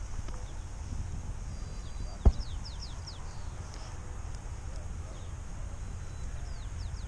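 Outdoor ambience with a steady low rumble of wind on the microphone and one sharp knock about two seconds in. A small bird calls with a quick run of high, falling chirps right after the knock and again near the end.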